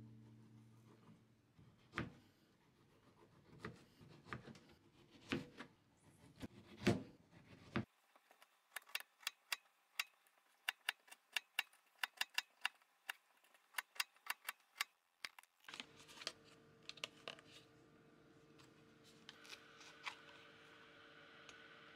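Kitchen knife cutting through strawberries and clicking against a plastic cutting board: scattered single cuts, then a quick run of clicks at about four a second. A faint steady hum comes in past the middle.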